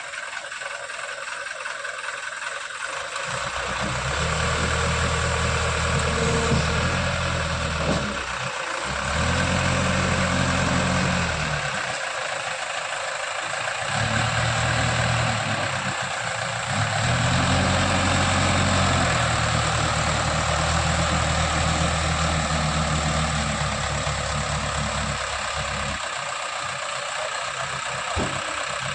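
JCB 3DX backhoe loader's diesel engine running, its deep note swelling and easing in several spells of a few seconds each as the machine works.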